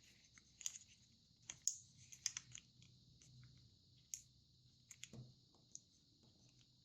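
Origami paper being folded and creased by hand: faint, scattered crisp clicks and crinkles at irregular intervals, a little louder near the middle.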